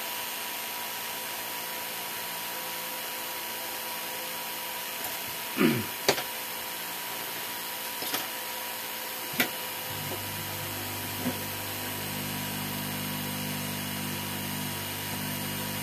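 A few light clicks and taps of small tools on the bench, then about two-thirds of the way in a hot air rework gun starts blowing with a steady humming fan, heating the board to solder the charging connector.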